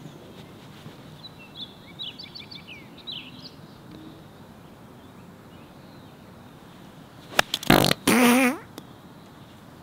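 Golf club splashing through bunker sand on a bunker shot: a sharp strike near the end, followed at once by a brief wavering vocal sound. Birds chirp faintly in the first few seconds.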